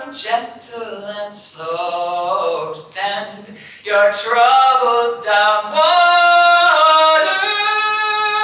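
A woman singing a cappella into a microphone: slow, unaccompanied phrases that settle into long held notes in the second half.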